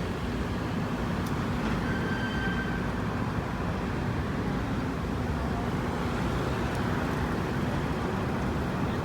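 Steady low rumble of running engines, with a brief thin high tone about two seconds in.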